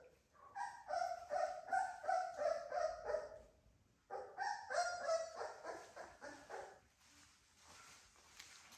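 Three-week-old American Bully puppy crying in short, high-pitched yelps, about three a second, in two runs with a brief pause between them. The cries fade out near the end.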